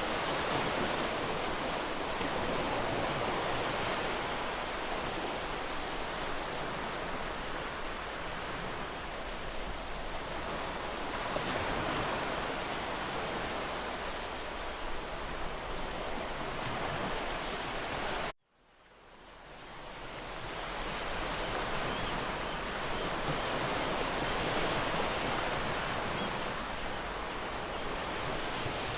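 Waterfall rushing steadily. About two-thirds of the way through, the sound cuts out suddenly and fades back in over a couple of seconds.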